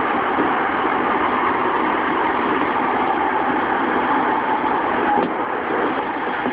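JR East E233-3000 series electric train running along the track, heard from inside the motor car: a steady rumble of wheels on rail and car-body noise. It gets a little quieter about five seconds in.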